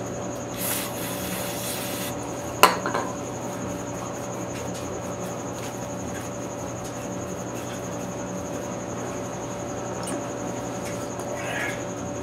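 Rubbing and wiping from cleaning engine main bearing shells by hand, with one sharp clink a few seconds in, over a steady hum.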